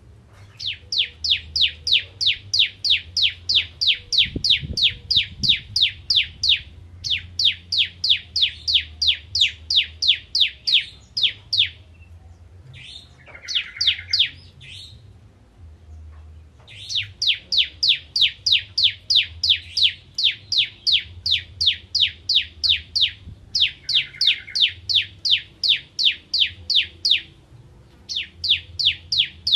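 Bar-winged prinia (ciblek) singing a rapid, high run of sharp repeated notes, about five a second, in phrases of several seconds with short breaks between them. About halfway there is a sparser phrase with a lower buzzy note, and a single soft thump comes early on.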